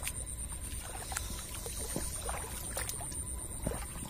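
Water sloshing and splashing in irregular strokes as someone wades through shallow floodwater, with a steady high-pitched trill going on throughout.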